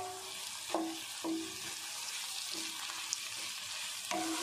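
Chopped bitter gourd, onion and tomato sizzling in oil in a pan as a spatula stirs and sautés them, with a short ringing clang from the pan at each of about four strokes.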